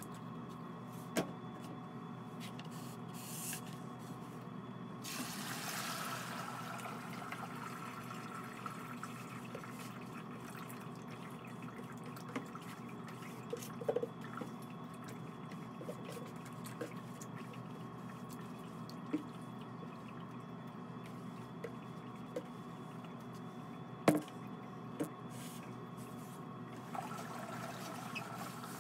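Wet ceramic glaze slurry dripping and trickling through a sieve into a plastic bucket over a steady low hum. A short swell of rushing noise comes around five seconds in, and a few sharp knocks of buckets and tools fall through it, the loudest about 24 seconds in.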